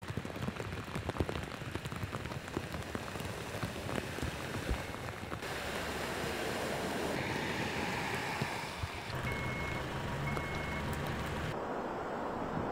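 Heavy rain pouring down on a road, a dense hiss full of sharp raindrop ticks. After about five seconds a vehicle drives through deep floodwater with a rushing splash, then two short high beeps about a second apart. Near the end comes a duller, steady rush of flowing floodwater.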